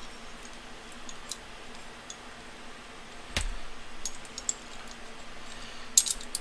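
Small metal clicks and taps as the hammer and trigger parts of a disassembled Iver Johnson .32 top-break revolver are worked free by hand, with a sharper knock about three and a half seconds in and a quick run of clicks near the end.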